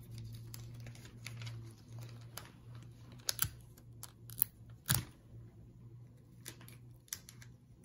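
Scattered soft clicks, taps and paper rustles as hands press down a folded newspaper and pull tape from a desk tape dispenser, the sharpest click about five seconds in. A faint low hum runs underneath.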